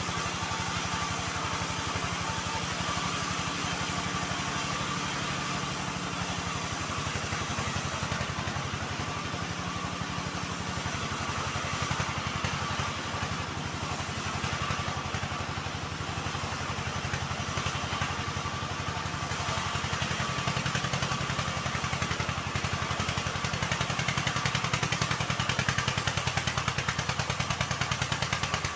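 Engine driving a homemade bandsaw mill, running steadily with a fast even beat, getting a little louder near the end.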